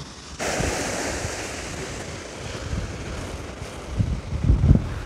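Surf breaking on the shore with wind buffeting the microphone, a stronger gust rumbling near the end.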